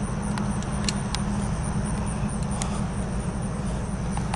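Low, steady rumble of a CSX intermodal freight train rolling away down the track, with a few faint clicks.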